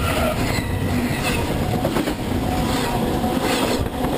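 A train rolling directly over the track at very close range: a loud, steady rumble with the irregular clatter of wheels over the rails.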